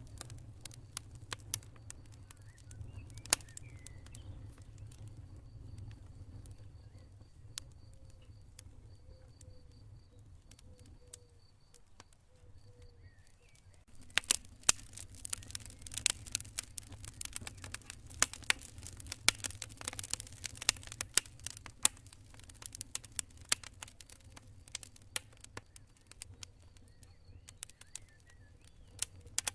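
Campfire crackling: scattered sharp pops over a low steady rumble, turning into dense, continuous crackling about halfway through. A faint high, evenly pulsed cricket chirping runs under the first half.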